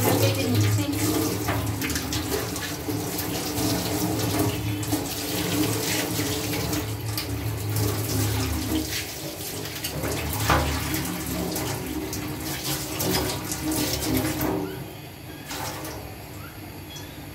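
Kitchen tap running into a stainless-steel sink as tomatoes and an onion are rinsed by hand in a bowl under the stream, with a few knocks of the bowl and vegetables. The tap is shut off near the end.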